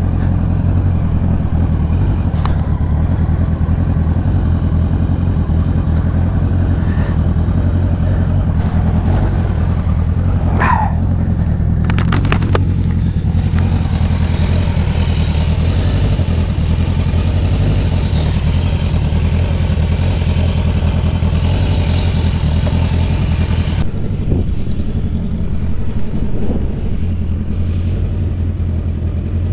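Kawasaki touring motorcycle's engine idling steadily while the bike is slowly manoeuvred and parked. About ten seconds in there is a short falling squeal.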